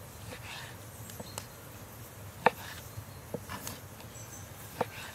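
A chef's knife cutting through lumps of raw fat and knocking on a wooden cutting board: several irregular knocks, the loudest about halfway through.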